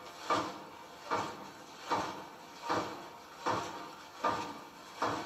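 Many feet marching in slow time on gravel, a regular crunching step about every three-quarters of a second, heard through a television speaker.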